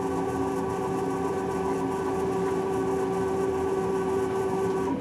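Universal testing machine's crosshead drive motor running steadily as it raises the upper wedge grip. It gives a hum of several steady pitches that cuts off suddenly near the end as the crosshead stops.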